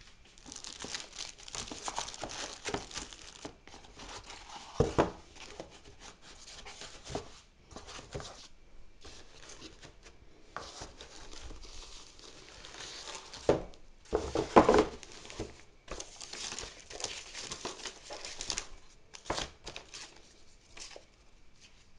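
Plastic and foam packaging crinkling and rustling in irregular bursts as a laptop is lifted out of its cardboard box. Louder knocks of the box and packing insert come about five seconds in and again around fourteen seconds.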